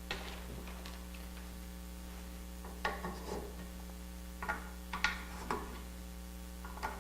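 Wooden dowels being set into drilled holes in a board edge: a handful of short, light wooden taps and rubs spaced a second or two apart, over a steady low electrical hum.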